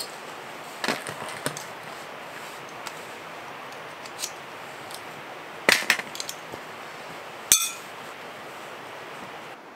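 Light metallic clinks and knocks from camping gear being handled, about six in all, the last and loudest ringing briefly. A steady rushing hiss runs underneath.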